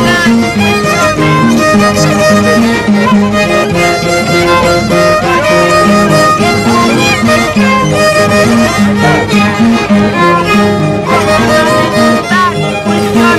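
An Andean harp and a violin playing a traditional folk dance tune. The harp plucks a repeating bass line under the violin's melody.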